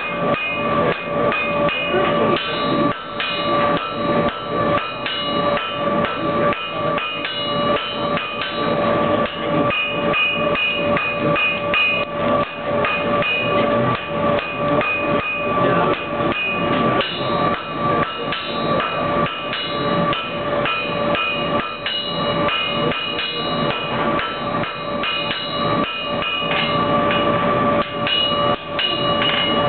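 Blacksmith's hand hammer striking white-hot iron on an anvil in many quick, repeated blows, with the anvil ringing throughout. The blows are forge-welding and shaping a ball on the top of an andiron.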